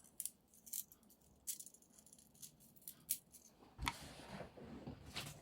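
Scattered small clicks and rattles from small items and packaging being handled, with a knock just before four seconds in followed by faint rustling.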